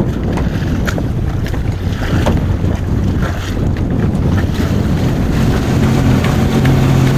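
Wind buffeting the microphone and water rushing and splashing along the hull of a sailing yacht under way. Near the end a steady engine hum comes in.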